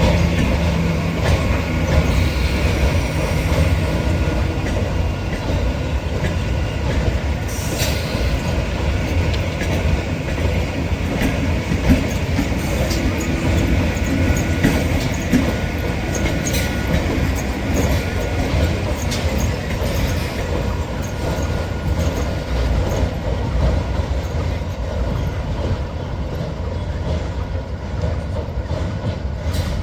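A train running past close by: a steady rumble of wheels on the track with scattered sharp clicks and some faint wheel squeal.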